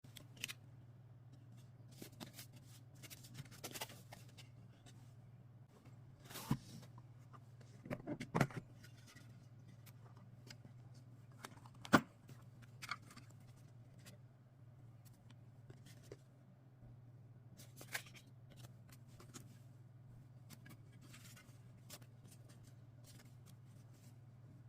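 Handling noises from unboxing a folding knife: scattered rubbing and rustling of packaging with small clicks and taps, and one sharp click about twelve seconds in, over a faint steady low hum.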